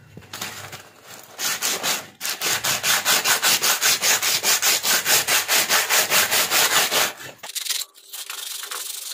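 Hand-sanding a steel meat cleaver clamped in a bench vise with sandpaper: rapid, even back-and-forth rasping strokes. The strokes start about two seconds in, stop about seven seconds in, and give way to softer rubbing.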